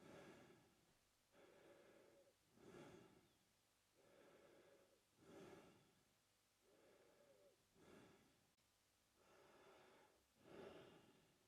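A man breathing slowly and faintly through his mouth. Each breath cycle has a short, louder breath and a longer, softer one, with a full cycle about every two and a half seconds. There are five louder breaths in all.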